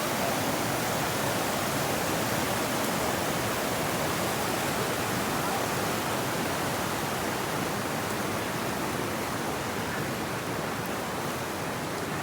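Waterfall rushing with a steady, even noise of falling water.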